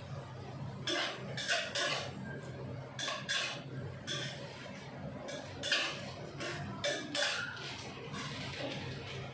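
Metal spatula scraping and clanking against a wok in irregular strokes while long beans and tofu are stir-fried, over a steady low hum.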